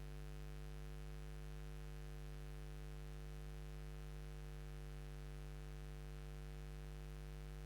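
Steady low electrical hum and buzz, like mains hum, with faint hiss underneath and no change throughout.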